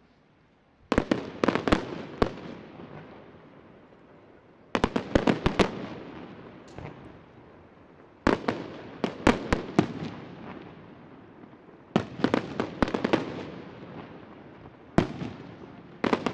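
Aerial fireworks shells bursting in volleys: clusters of several sharp bangs come roughly every three to four seconds, each cluster trailing off in a long echoing rumble.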